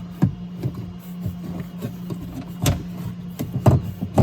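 Scattered clicks and knocks of a car door lock actuator being handled and worked into place inside the door shell, over a steady low hum.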